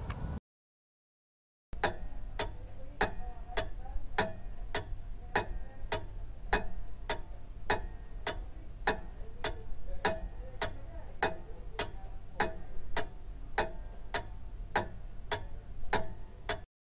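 Pendulum clock ticking, a steady tick-tock at just under two ticks a second. It starts after a moment of dead silence and cuts off just before the end.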